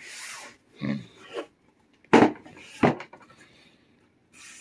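Fabric rustling as the printed cloth on a wooden guitar body is handled, then two sharp knocks about two-thirds of a second apart as the body is turned over on the table.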